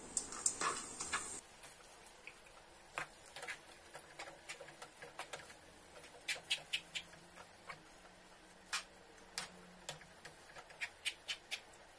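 Metal spoon clicking and scraping against a nonstick pan while a thick, dough-like chana dal halwa with dry fruits is stirred and roasted. The taps come irregularly, in places several a second.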